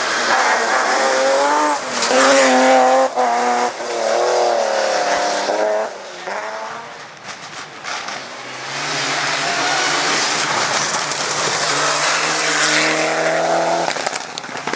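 Rally car engines at full throttle, revving hard with quick breaks between gear changes as a car goes past, with some tyre squeal. After a short lull about six seconds in, another engine comes in, its pitch climbing steadily as it accelerates.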